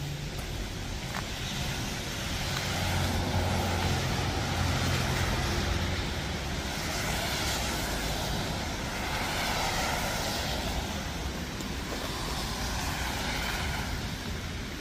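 Cars passing on a wet street: tyre hiss swells and fades several times over a low engine hum.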